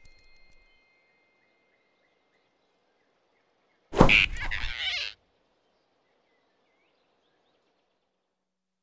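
Near silence, broken about four seconds in by one sudden loud whoosh and grab lasting about a second: a cartoon sound effect of a giant rabbit's hand snatching a flying squirrel off a branch.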